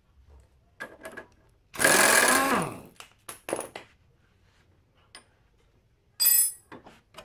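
Impact wrench loosening a motorcycle's front axle nut: a burst of about a second whose pitch winds down at its end, a few metal clinks, then a second short burst near the end.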